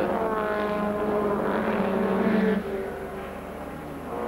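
Onboard sound of a 1300 cc Clubman sports car's engine at racing speed, holding a steady, slightly rising note. About two and a half seconds in it goes quieter and lower, then picks up again near the end.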